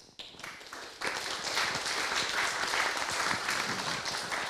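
Audience applauding: a few scattered claps that build into full applause about a second in.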